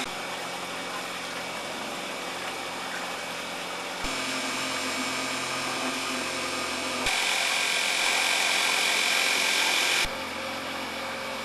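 Electric outboard motor of a homemade solar boat running with a steady whine, over water rushing and splashing along the hull and wake. The sound changes abruptly about four, seven and ten seconds in, and is loudest between about seven and ten seconds.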